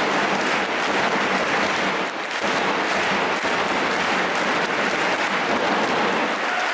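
A crowd applauding steadily, a dense unbroken clatter of clapping.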